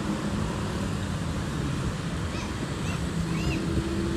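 Bus engine idling steadily with a low rumble, with a few faint, short high-pitched chirps in the background during the second half.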